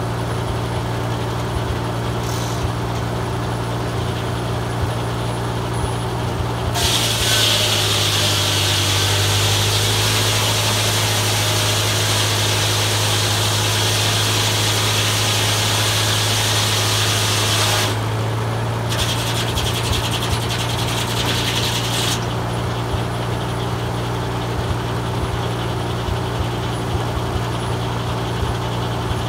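Farmall M tractor's four-cylinder engine running steadily while driving a Belsaw circular sawmill. About seven seconds in, the circular blade cuts through a pine log with a loud, high hissing whine for about eleven seconds, the engine note dipping a little under the load. A shorter burst of blade noise follows about nineteen seconds in.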